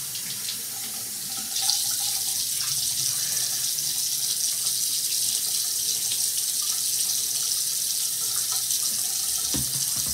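Bathroom sink tap running steadily into the basin while a face is washed, a little louder from about a second and a half in.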